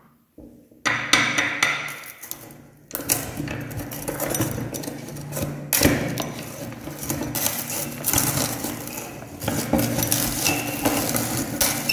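Hard-candy lollipops cracking and crunching in a hand-cranked metal meat grinder, with a dense run of sharp cracks and clinks starting about a second in.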